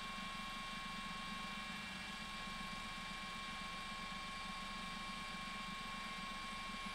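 Steady aircraft running noise, a low hum with a constant high whine over it.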